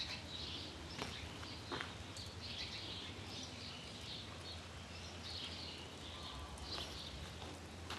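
Birds chirping again and again over a steady low rumble, with a couple of light knocks about a second in.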